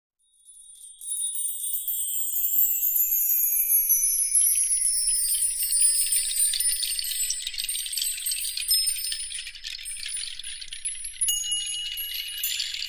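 Logo-intro sound effect: a high, shimmering tinkle of chime-like sparkles with several tones slowly falling in pitch. It fades in over the first second, and a steady high tone joins near the end.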